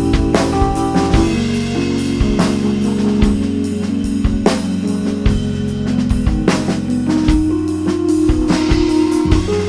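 Electronic keyboard and drum kit improvising together: long held keyboard notes and a moving bass line over busy drumming with frequent sharp hits.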